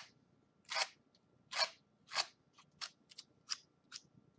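Handheld paper edge distresser scraping along the edge of a sheet of paper in short strokes, about two a second, roughing up and fraying the paper's edge for a distressed look.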